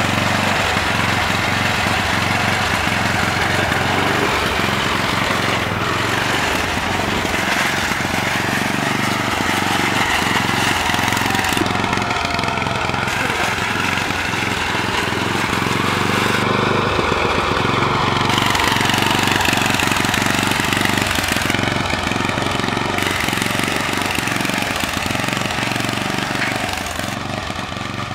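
Small engine of a riding lawn mower running steadily as the mower is driven along, easing off slightly near the end.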